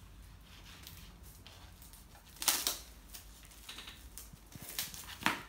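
Plastic wrapping on a new CD being cut open with a small craft knife and handled, crinkling in short bursts, loudest about two and a half seconds in and twice near the end.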